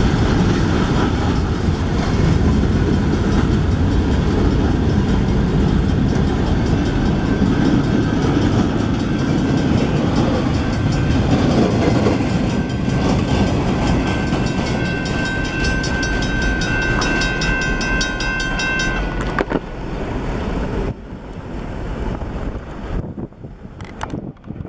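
Freight cars of a Canadian National train rolling past a grade crossing: a heavy, steady rumble of steel wheels on rail with clattering over the joints. From about halfway, thin high steady tones ring over the rumble. The noise then drops away in steps as the last cars pass and recede.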